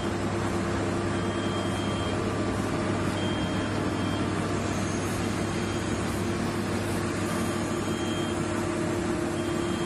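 Heavy construction machinery's diesel engine running steadily, a constant low drone with no change in speed.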